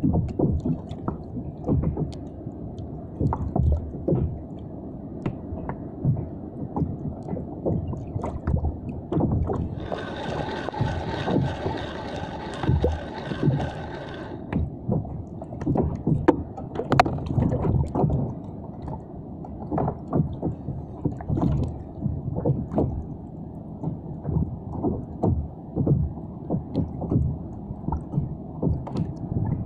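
Water lapping and slapping against a kayak hull in irregular low knocks. From about ten to fourteen seconds in, a spinning reel is wound in with a steady whirring.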